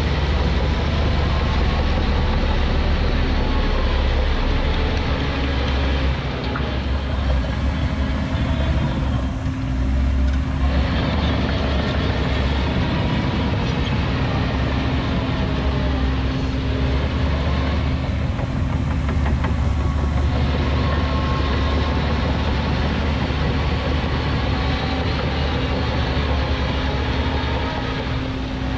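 Heavy earthmoving machine's diesel engine running steadily under work, with a steady whine over the deep engine sound; it eases off briefly twice.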